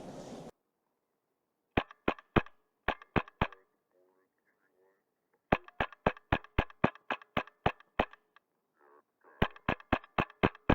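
Wolverine MTW HPA airsoft rifle firing strings of sharp shots, about four or five a second, in three strings with short pauses between them.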